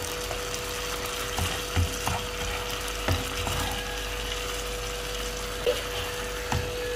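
Chopped tomatoes sizzling and bubbling in a non-stick frying pan while a plastic spatula stirs them, with a few soft knocks of the spatula against the pan. A steady hum runs underneath.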